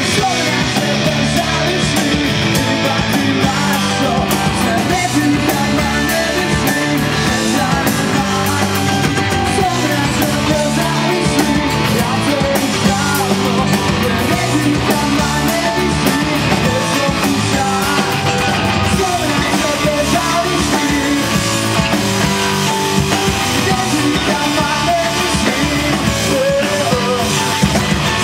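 Live rock band playing, with electric guitar and a male lead singer.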